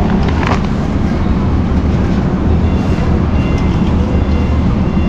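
Steady low rumble of a large warehouse store's background noise: ventilation hum and the distant bustle of shoppers.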